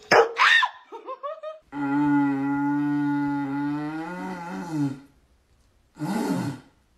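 A husky-type dog gives yelping, whining calls that slide up and down in pitch. Then a man blows a long, steady, low horn-like drone through a cardboard tube for about three seconds, wavering as it ends. A short wavering cry follows near the end.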